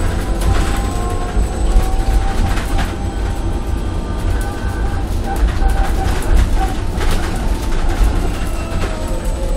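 Cabin sound of a small shuttle bus driving: a steady low rumble, a faint whine that shifts in pitch with speed, and scattered rattles and knocks from the bodywork.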